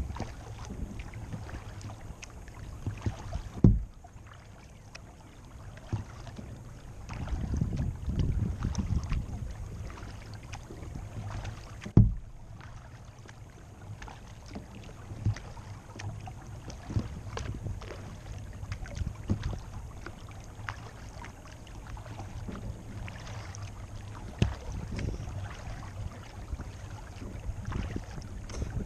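Kayak paddling on calm water: a steady low rumble with scattered paddle splashes and drips. Two sharp knocks on the plastic hull, about 4 and 12 seconds in, are the loudest sounds.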